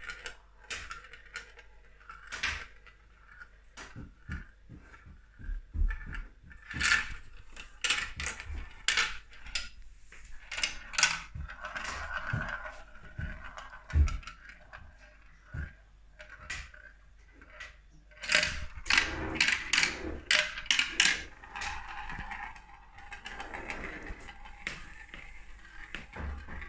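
A marble rolling down a marble run tower, clicking and clacking as it drops through the twists and turns, with stretches of rolling noise along the track and a quick run of loud clacks about two-thirds through.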